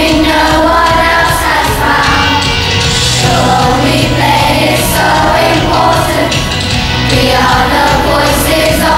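Children's choir singing a pop song together over an instrumental accompaniment.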